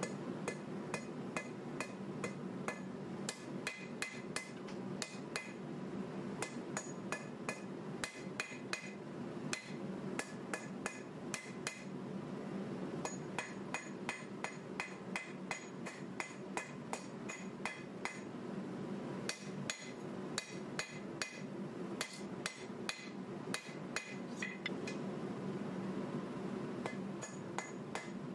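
Hand hammer striking a red-hot 1095 carbon steel knife blank on an anvil while forging the blade, about two blows a second with brief pauses, each blow leaving a short metallic ring. A steady low hum runs underneath.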